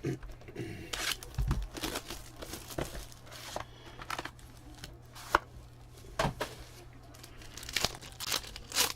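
Wrapper on a box or pack of football trading cards being torn open and crinkled, with scattered sharp clicks and taps.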